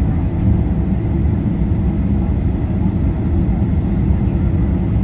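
Steady low rumble of a Boeing 777-300ER's engines and airflow, heard from inside the economy cabin.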